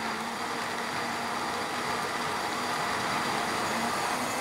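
Froothie Optimum 9200A high-performance blender running steadily, a held motor whine over a churning wash as it purées tomatoes, yogurt, tomato paste and water into soup. This is the long run that heats the soup by friction until it steams.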